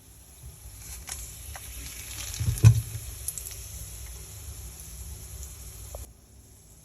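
Food sizzling in a frying pan, a steady high hiss with a few small clicks, that stops abruptly about six seconds in. A loud thump about two and a half seconds in.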